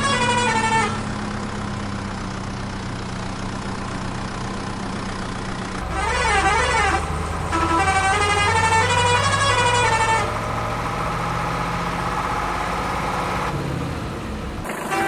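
A vehicle engine running steadily, with a melodic musical horn tune playing at the start and again from about seven and a half to ten seconds in. A short wavering siren-like wail comes about six seconds in.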